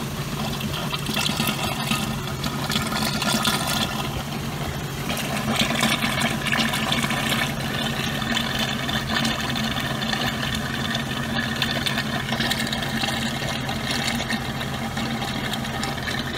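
Automatic transmission fluid pumping out of a Jeep XJ's disconnected transmission cooler line into a plastic bucket, churning and bubbling under the surface. Under it is the steady low hum of the engine idling in neutral, which drives the transmission pump that pushes the fluid out.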